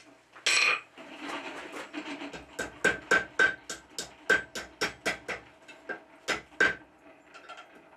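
Hand hammer striking red-hot steel over the horn of an anvil: a quick run of light blows, about three to four a second, some with a short metallic ring. A louder clatter about half a second in.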